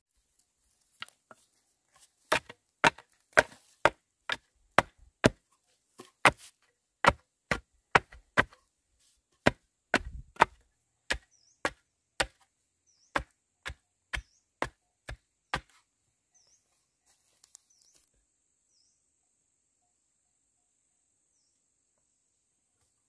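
Bamboo being chopped with a blade: a run of about two dozen sharp, steady blows, roughly two a second, that stops about fifteen seconds in. A faint high insect drone runs underneath and is left alone near the end.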